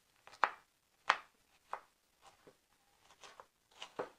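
Kitchen knife finely chopping a yellow bell pepper on a wooden cutting board: about ten uneven knife strokes, the knife knocking on the board with each cut.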